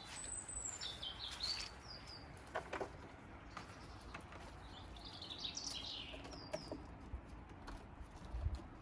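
Small garden birds chirping and calling, short high calls in bursts, a flurry near the start and another about five to six seconds in. A low thump comes near the end.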